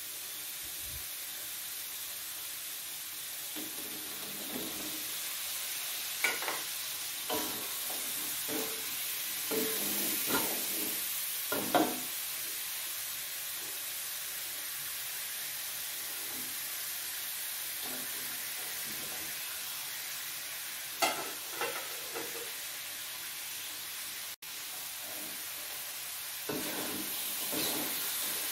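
Red chili spice sauce sizzling in a metal wok, with a steady hiss throughout. A metal spatula scrapes and clinks against the wok in short bursts of strokes as fried tofu and potato pieces are stirred through the sauce, about a quarter of the way in, again past two-thirds, and near the end.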